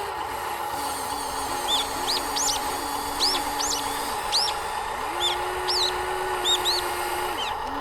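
Repeated short, high bird chirps over the steady whine of an RC excavator's electric motor. The whine drops in pitch about a second in, rises again around five seconds, and drops once more near the end.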